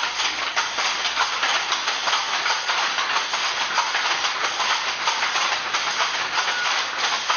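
Many wooden handlooms working at once, a dense, rapid, irregular clacking of shuttles and beaters over a steady hiss.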